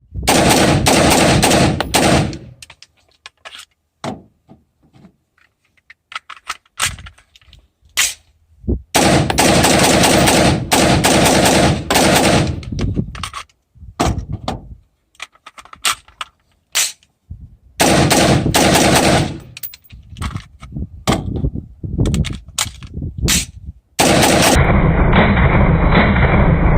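AR-15 rifle firing four rapid strings of shots, each lasting about two to four seconds, with scattered single sharp reports in the gaps between strings.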